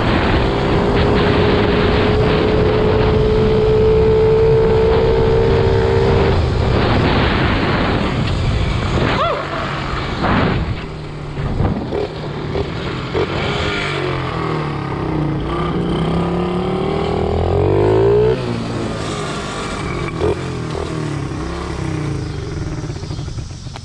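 Small dirt bike engine running loud under way: held at steady high revs for about six seconds, backing off around the tenth second, then revving up and down before settling to lower revs near the end.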